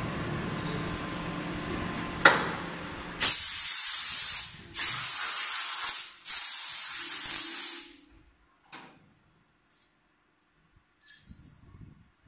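A steady hum of press machinery, then a sharp click, then three long blasts of a compressed-air blow gun, each about a second and a half, as a worker blows out a station of a multi-station hydraulic brake-pad press. It goes nearly quiet after the blasts, with a faint knock and a few light clinks.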